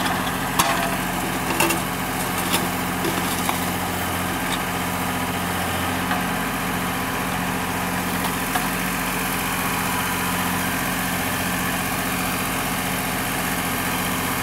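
Tractor diesel engine running steadily while it powers a Bull backhoe attachment digging soil, with a few sharp clanks in the first few seconds.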